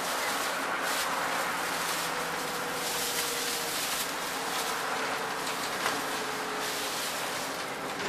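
Scania N230UD Enviro400 double-decker bus on the move, heard from the front of the upper deck: a steady engine drone with road noise and occasional rattles of the bodywork.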